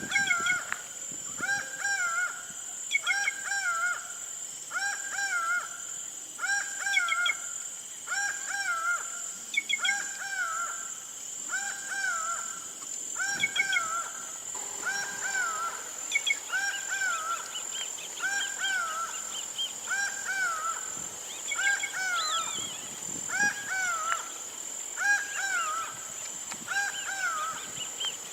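A bird repeating the same short, nasal-sounding arched call about once a second, with fainter high chirps from other birds in the middle stretch. A steady high-pitched drone lies underneath.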